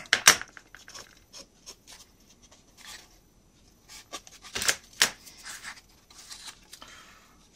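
Small laser-cut wooden model parts and a craft knife handled on a work board: scattered light taps, scrapes and rubs, with a few sharper knocks about four and a half to five seconds in.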